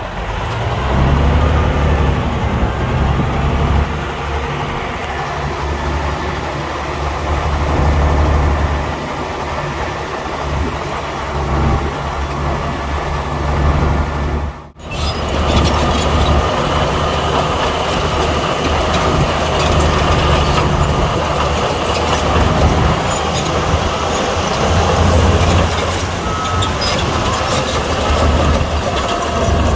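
Heavy diesel engine of a bulldozer running steadily, a deep hum with rattle and clatter over it, broken by a brief cut about halfway through.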